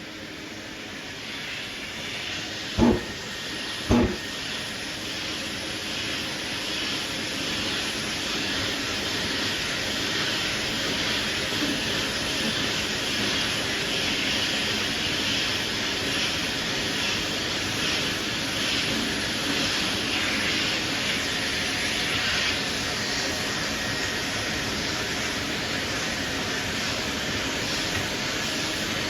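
180-grit sandpaper on a 12-inch sanding block rasping across primer in a steady run of strokes, block sanding a guide-coated panel. Two sharp knocks come about three and four seconds in.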